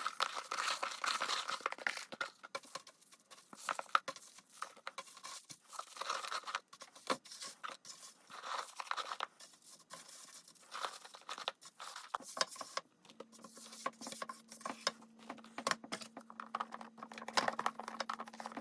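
Crisp freeze-dried food crackling and crunching in irregular bursts, brittle dry pieces breaking. A faint steady hum joins in about two-thirds of the way through.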